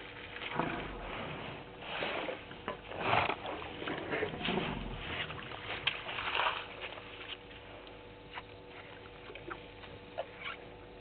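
Irregular rustling and scuffling from elephants moving in grass and bush, busiest in the first seven seconds and then fading to a few small clicks, over a faint steady electrical hum.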